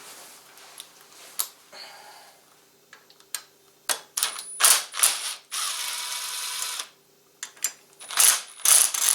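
Hand socket ratchet wrench clicking in several short bursts, with one longer run of clicking a little past halfway, as bolts on a motorcycle's rear brake pedal assembly are worked.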